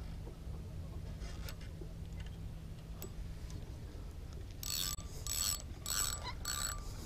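Spinning reel mechanism whirring in four short, evenly spaced bursts, each with a thin high whine, a few faint ticks before them.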